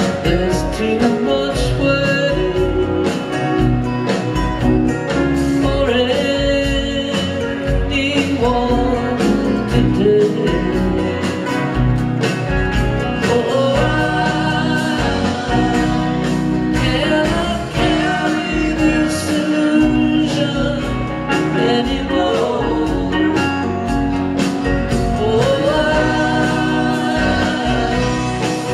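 Live string band playing a song at steady volume: mandolin, acoustic and electric guitars, fiddle, keyboards and drums together over a driving beat.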